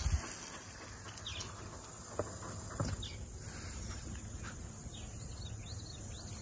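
Insects buzzing steadily at a high pitch, with a few short, falling bird chirps scattered through.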